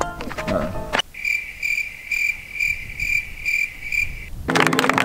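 Cricket chirping, a steady high trill pulsing about twice a second. It starts about a second in and cuts off cleanly before the end, like an added 'crickets' sound effect.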